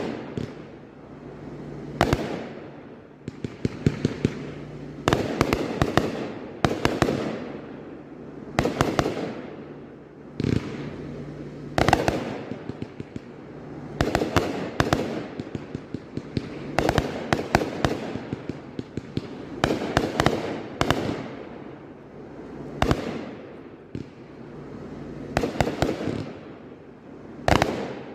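A 177-shot consumer firework cake firing continuously: sharp bangs every second or two, often several in quick succession, each fading out in a noisy tail of crackle before the next shots.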